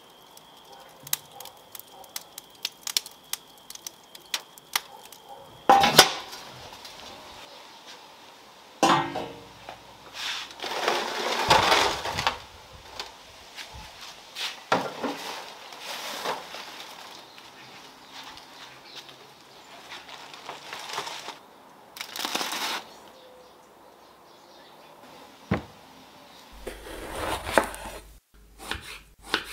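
Wood embers crackling in a brick wood-fired oven, then a foil-covered metal roasting tray scraping and clanking against the brick in several loud bursts. Near the end, a knife slicing eggplant on a wooden cutting board.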